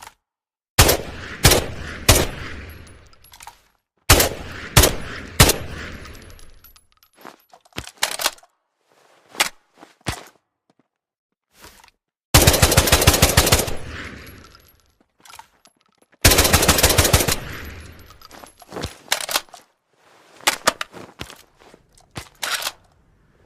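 JM-3 assault rifle sound effect: two sets of three single shots, each shot with a long echoing tail, then two rapid automatic bursts, the first about two seconds long and the second about one. Lighter mechanical clicks fall between the shots and the bursts and after them.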